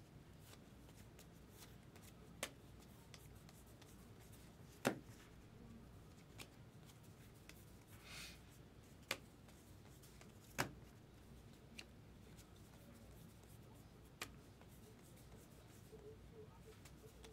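Topps Heritage baseball cards being handled and flipped through by hand: about seven sharp clicks, one every one to three seconds, as cards are set down, the loudest about five and ten and a half seconds in. A soft brush of card on card comes about eight seconds in, over near silence.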